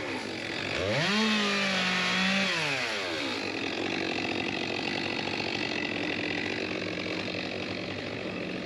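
Two-stroke chainsaw revved up about a second in, held at full throttle for over a second, then let back down, followed by steady engine running.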